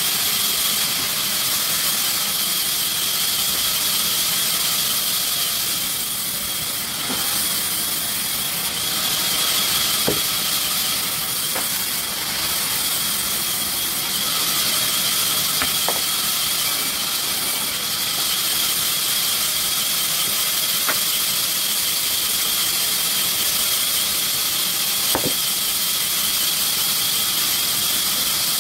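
Sawmill saw running through wood: a steady high-pitched squeal over a hiss, with a few faint clicks scattered through it.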